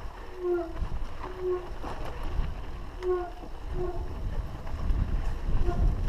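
Mountain bike descending a dry dirt trail: wind rushing over the camera's microphone with tyre and bike rattle, and short pitched blips recurring every half second or so.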